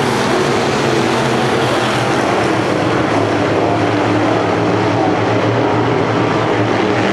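Engines of a field of dirt-track race cars racing around the oval: a loud, steady drone of several engines whose pitches overlap and drift.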